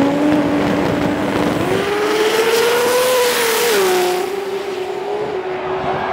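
A turbocharged 2JZ-engined drag car launching and accelerating down the strip. Its engine note climbs, drops sharply at a gear shift about four seconds in, then holds steady as the car pulls away.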